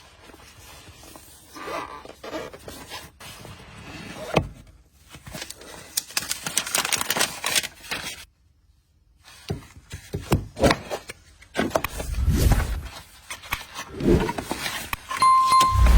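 Handling a smartphone retail box: cardboard and packaging sliding, scraping and tapping, with scattered clicks and rustles. There are two low thumps, the louder one near the end, and a brief high beep just before it.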